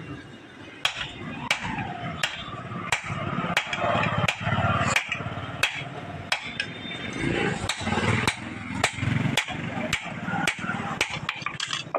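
Hand hammer forging a red-hot steel cleaver blank, cut from a truck leaf spring, on a block anvil: evenly spaced blows about one and a half a second, quickening near the end.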